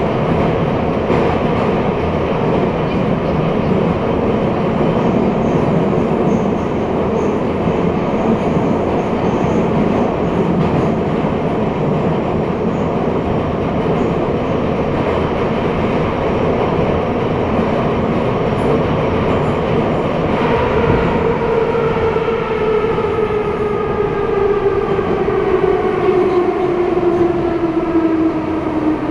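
Metro train running at speed, its wheels rumbling on the rails. About two-thirds of the way in, a traction-motor whine comes up and falls steadily in pitch as the train slows.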